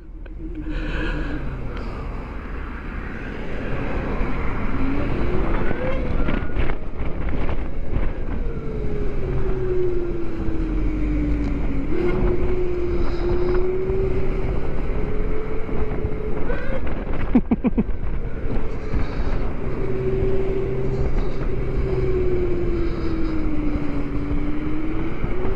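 Zero DSR-X electric motorcycle under way: the electric drive's whine glides up and down in pitch with speed over a steady rush of wind on the microphone, with a few sharp knocks in between.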